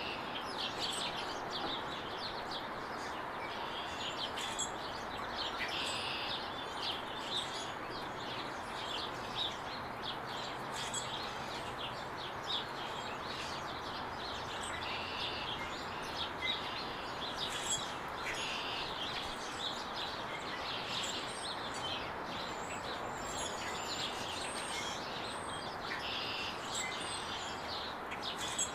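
Many small birds chirping throughout, short calls overlapping one another, over a steady background noise.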